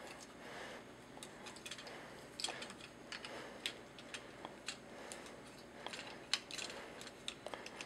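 Plastic joints and parts of a TFC Toys Phobus transforming figure clicking and tapping faintly and irregularly as its limbs and tail feathers are folded by hand.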